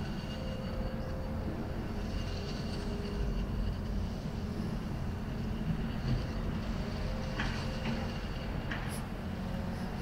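Steady low background rumble, like distant traffic. A few faint short ticks come near the end.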